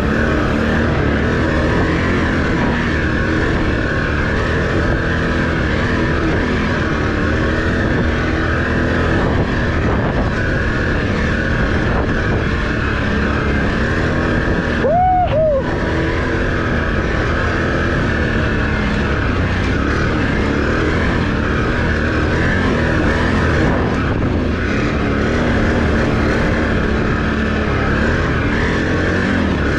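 Can-Am Renegade ATV engine running steadily while the quad rides along a sandy trail. About halfway through there are two short rising-and-falling squeaks.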